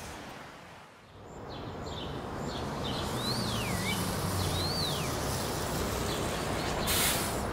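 City street ambience: a steady low rumble of traffic. Over it a bird calls several times, with short chirps and then two clear whistles that rise and fall. A short rush of noise comes near the end.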